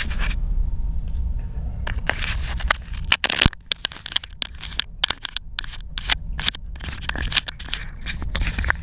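Sea water rushing past a ship's porthole: a steady low rumble under dense, irregular crackling and splashing clicks.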